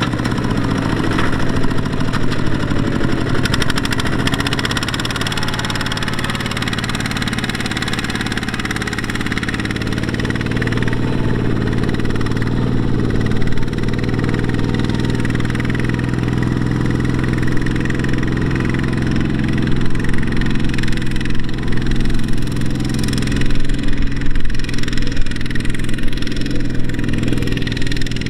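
Diesel engine of farm machinery running steadily, with a strong low drone. In the last several seconds the sound turns rougher, with uneven louder pulses.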